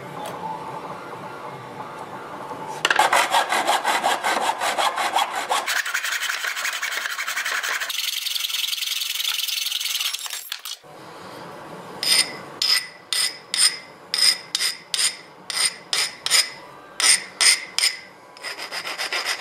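Hacksaw cutting aluminium extrusion in a plastic miter box with fast strokes. After a break come slower scraping strokes, about two a second, with a metallic ring as the cut piece of extrusion is worked by hand.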